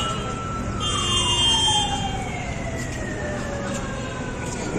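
A siren wailing: its pitch holds high, then sinks slowly over about four seconds and sweeps up again near the end. About a second in, a short high-pitched steady tone sounds over it.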